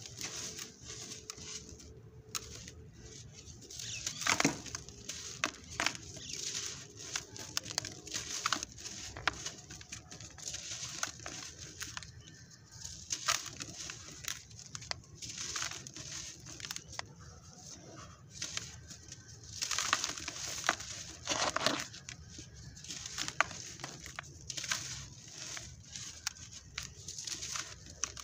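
Dry, crumbly sand crushed and poured by hand into a plastic tub: repeated hissing trickles of falling grains, with many small crunches and clicks as caked clumps break apart.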